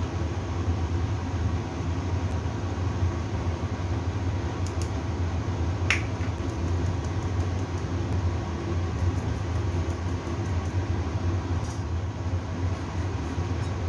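Steady low mechanical hum, with a sharp click about six seconds in and a run of faint light ticks near the end as flour is shaken through a metal mesh sieve.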